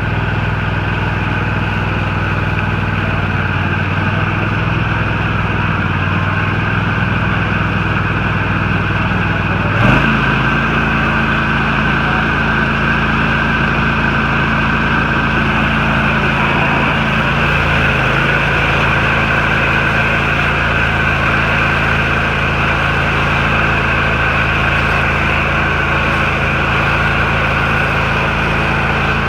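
Husqvarna riding lawn tractor's engine running steadily. About ten seconds in, a short knock, and the engine note shifts to a different steady pitch.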